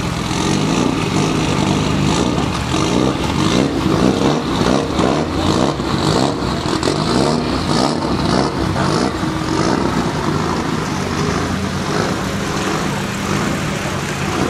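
Rally car engine running close by, revved up and down over and over.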